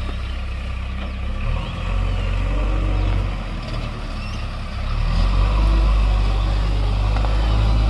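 Heavy diesel engine running, getting clearly louder about five seconds in.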